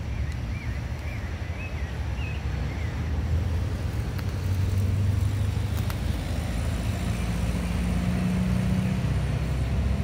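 Low rumble of road traffic, with a vehicle engine's hum growing louder about halfway through and holding.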